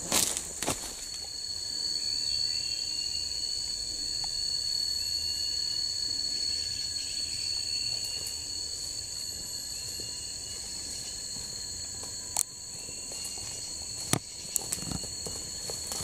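Steady high-pitched insect chorus, with faint short chirps in the first half and two sharp clicks about two seconds apart near the end.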